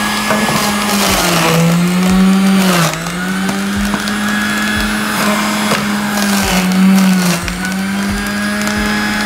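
Yalli Sun electric juicer motor running steadily as carrots are pushed through it, with crunching as they are ground. Its hum sags in pitch twice, about a second and a half in and again around six and a half seconds in, as the carrots load it.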